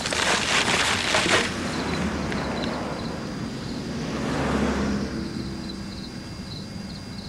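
Plastic bag crinkling as it is handled, then a low rumbling noise that swells about four to five seconds in and fades away, as of a passing vehicle.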